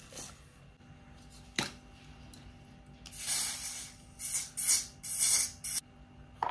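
Got2b Glued aerosol hairspray sprayed in about five short hissing bursts, starting about three seconds in. A single sharp click comes shortly before.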